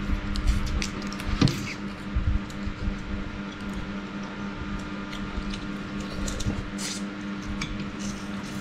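Spoons clicking and scraping on ceramic plates, with chewing, as rice is eaten, over a steady low hum. A brief sliding squeak about one and a half seconds in.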